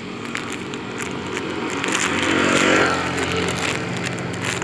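A motor vehicle passing on the road, its engine and tyre noise swelling to a peak a little past halfway and then fading, over a steady engine hum.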